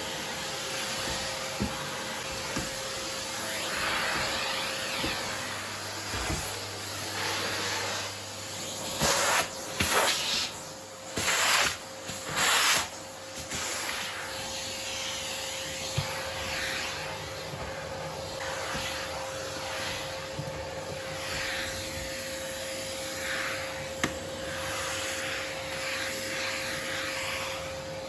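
Vacuum cleaner running steadily with a constant motor whine. About a third of the way in there are four or five short, louder rushes of suction.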